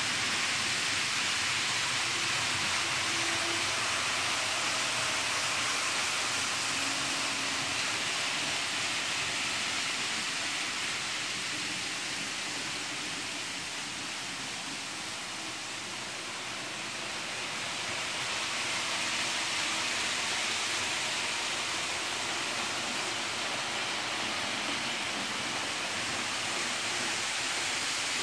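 Steady rushing whir of several model trains running around the layout's tracks, easing off a little about halfway through and swelling back.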